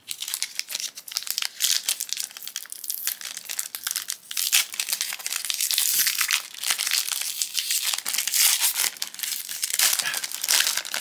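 Foil booster-pack wrapper crinkling and crackling as it is handled and torn open, a dense run of sharp crackles.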